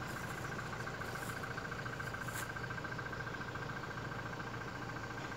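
A steady background drone: a low hum with a high, finely pulsing tone held above it.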